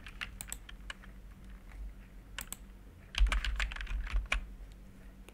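Typing on a computer keyboard: scattered keystroke clicks, then a quick run of keystrokes about three seconds in.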